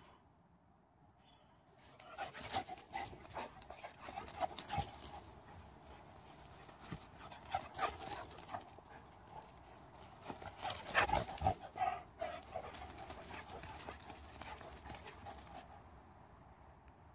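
A dog tearing around and spinning on grass: many quick thuds and scuffs of its paws on the turf, mixed with its own dog noises. It starts about two seconds in, is loudest about eleven seconds in, and fades near the end.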